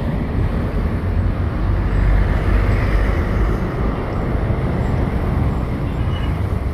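Road traffic passing close by on a busy highway: heavy trucks and motorcycles going by, a steady low rumble of engines and tyres that swells about two seconds in and eases off again.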